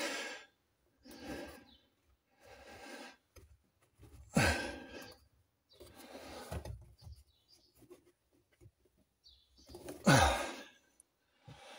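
A man's heavy breathing under strain, with a string of breathy exhalations and two louder grunting sighs that drop in pitch, about four seconds in and near the end.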